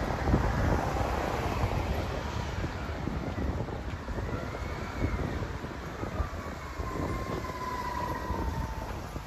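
Steady low vehicle rumble, with a faint whining tone that rises and falls about halfway through and holds steadier near the end.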